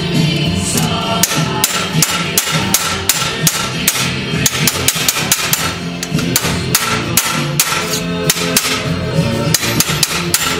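Hand hammer striking a sheet-metal strip held over the edge of a steel bar, bending it: a steady run of sharp metallic blows, about two a second.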